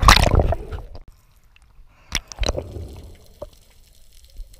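Sea water splashing and gurgling over an action camera as it plunges below the surface, loudest in the first second. Then muffled underwater sound with a few sharp clicks about two seconds in.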